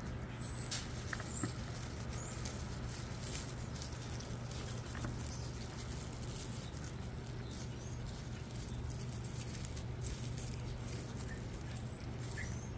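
Dry leaf sheaths and stems of a red ginger clump rustling and crackling in the hand, in small irregular clicks, over a steady low hum.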